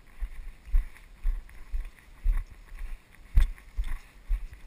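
Footsteps of a person walking over moss and heath, dull thuds about two a second, with a few sharper clicks among them.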